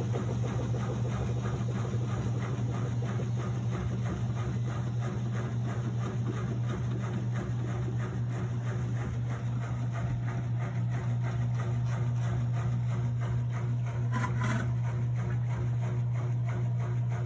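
Miele W1113 front-loading washing machine running with a steady low hum and a rapid, regular ticking rattle, the unexplained noise the owner fears means the machine is broken. A brief brighter clatter stands out about fourteen seconds in.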